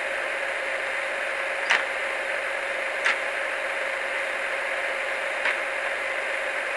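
Class 108 diesel multiple unit engine idle from an N gauge model's DCC sound decoder, played through its tiny onboard speaker: a steady, thin hum with little bass. Three short sharp clicks sound over it.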